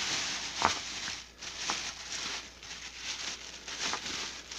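Plastic freezer bags of frozen ground beef rustling and crinkling as they are handled and lifted out of a chest freezer, with a few light knocks of frozen packages against each other.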